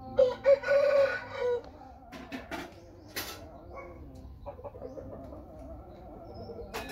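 Fighting rooster squawking loudly for about a second and a half while its head is held, followed by a few sharp clicks.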